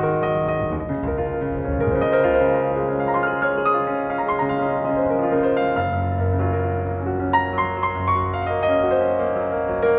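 Slow, gentle piano music with sustained chords over a low held bass.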